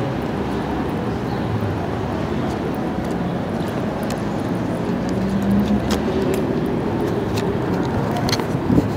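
City street noise: a steady rumble of traffic, with scattered small clicks and a sharper knock near the end.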